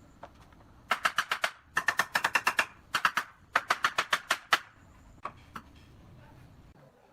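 Pneumatic nail gun bump-firing into pallet wood in four quick bursts of sharp, rapid shots, followed by two single shots.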